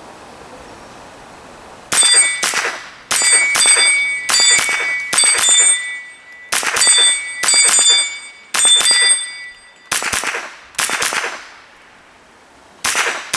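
Semi-automatic .22LR rifle (GSG STG44) firing a string of about ten shots, roughly one a second, with a short pause before the last. Most shots are followed by the ringing ping of the bullet hitting a steel target.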